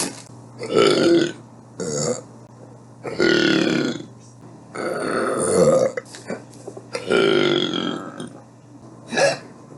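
A person burping over and over: about six belches with short pauses between. Most are long and drawn out; one about two seconds in and one near the end are short.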